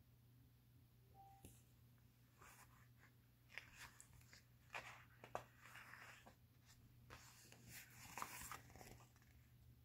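Faint rustling and soft clicks of paper as a paperback picture book is opened and its pages are turned, over a low steady hum.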